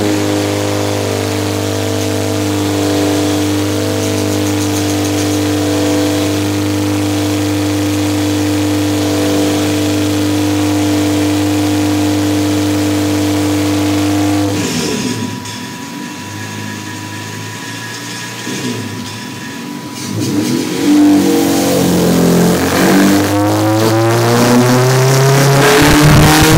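Honda K20 Type R four-cylinder engine in a Civic EK running on a chassis dyno: a steady drone at constant revs for about fourteen seconds, then dropping off, then climbing in a rising pull through the revs over the last five seconds or so, the sound of a dyno power run.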